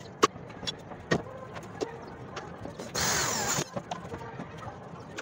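Scattered clicks and knocks of metal parts handled against a corrugated metal roof and a solar panel frame, with one loud, harsh burst of noise lasting about half a second a little past the middle.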